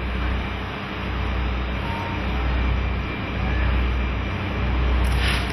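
Busy railway platform ambience: a steady low rumble and hum that swells and dips about once a second, under the murmur of a waiting crowd. A short hiss about five seconds in.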